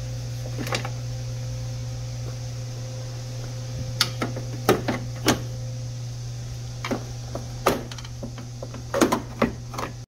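Plastic front bumper cover being pulled free of its clips: sharp clicks, snaps and knocks at uneven intervals, most of them from about four seconds in and bunched near the end, over a steady low hum.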